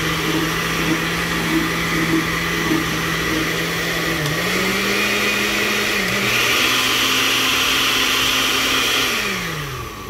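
Oster blender running with water in its glass jar after a new blade assembly and coupling were fitted: a steady motor hum that steps up in speed twice, about four and six seconds in, then winds down near the end. It runs smoothly, a sound the repairer calls perfect.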